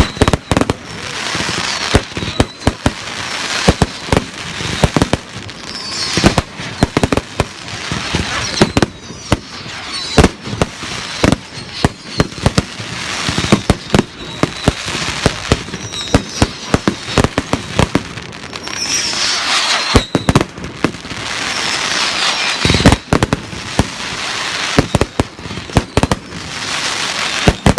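Fireworks display: a continuous barrage of loud bangs from exploding shells, with crackling and hissing between them and a few whistles.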